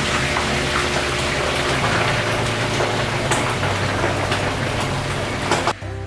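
Boiled pork leg (pata) deep-frying in a wok of hot oil: a steady sizzle with occasional sharp pops. The sizzle cuts off suddenly near the end and music takes over.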